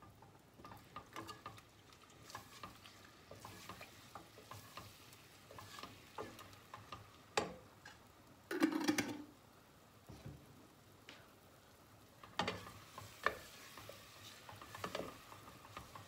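Wooden spoon stirring tomato paste into fried onions in a stainless steel pot, scraping over a low sizzle, with a few louder knocks, the loudest about halfway through.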